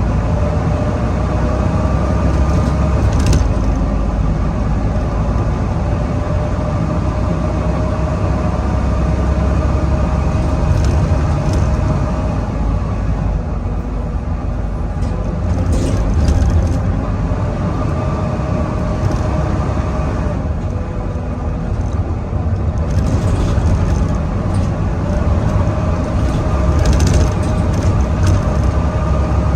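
Volvo B9TL double-decker bus's engine pulling hard, a deep rumble under the whining 'hoover' tone that slowly rises and falls, fading for a while in the middle and coming back. Short clicks and rattles break in now and then.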